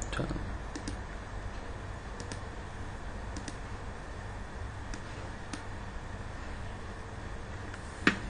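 A few sharp computer-mouse clicks, spaced seconds apart, over a steady microphone hiss and low hum.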